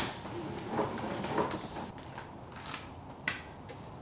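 Pressure washer hose being pulled off its retractable reel: scattered clicks and rattles from the reel and the hose, with one sharp click about three seconds in.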